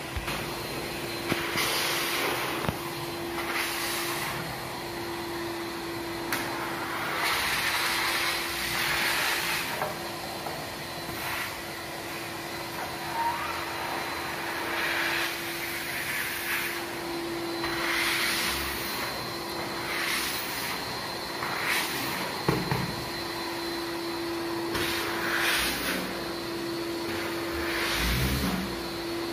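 Wet-and-dry drum vacuum cleaner running steadily, its floor wand sucking shampoo foam and water out of a carpet. The hiss of the suction rises and falls every couple of seconds as the wand is stroked over the wet pile.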